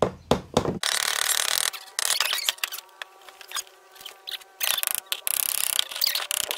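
A hammer knocking a nail into a thin plywood birdhouse panel, several quick blows in the first second, followed by stretches of scraping and rattling noise as the wood pieces and tools are handled on the workbench.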